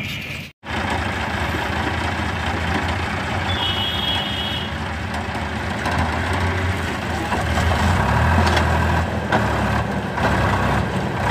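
Sonalika DI 50 tractor's diesel engine running under load as it pulls a fully loaded sand trolley, growing louder from about six seconds in as it comes closer. The sound cuts out for a moment just after the start, and a brief high-pitched tone sounds about three and a half seconds in.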